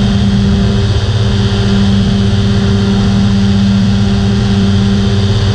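Rotax 503 two-stroke twin engine of an ultralight trike running steadily in flight, with a constant drone and airflow rush over the microphone.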